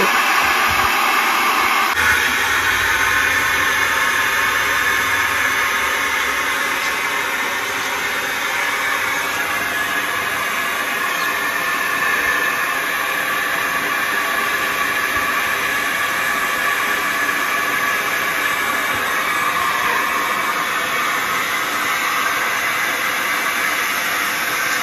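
Agaro cordless air duster used as a blower, running steadily with an even hiss as it pushes air through its nozzle into the valve of an inflatable paddling pool.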